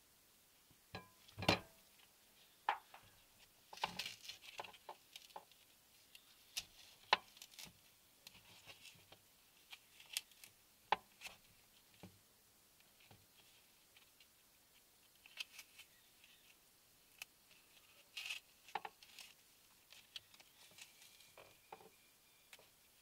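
Scattered, irregular drops of water from overhanging trees tapping on a car's roof, heard from inside the car, a single tap every second or so with quiet between.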